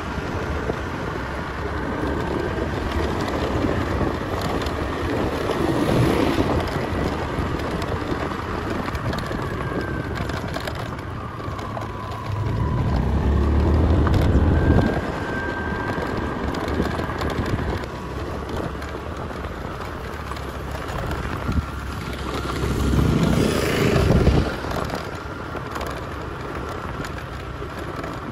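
Motorcycle engine running while being ridden, with wind buffeting the microphone and tyre noise. The rumble swells a few times, most strongly about halfway through.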